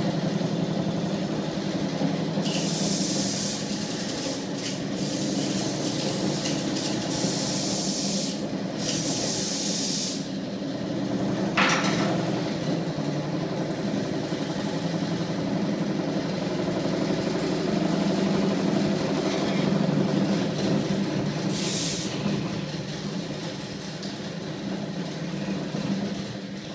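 Prototype magnet-coupled flywheel machine, driven by a small electric motor, running with a steady mechanical hum from its spinning flywheel and rotor. Several short bursts of hiss come and go, a sharp click sounds about twelve seconds in, and the running grows quieter near the end.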